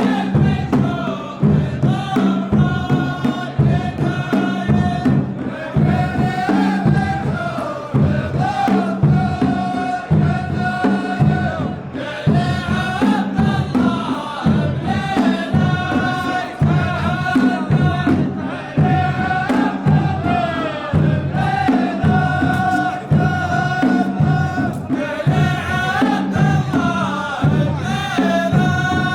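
Saudi ardah: a chorus of men chanting verses in unison, in long drawn-out lines, over a steady beat of heavy drums.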